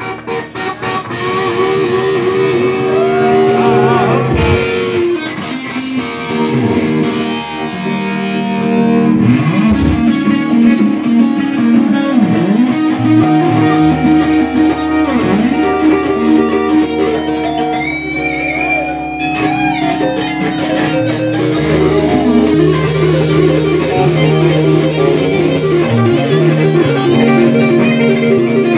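Southern rock band playing live, heard from the crowd: a distorted electric guitar with a sung vocal. A deep bass part comes in about halfway through.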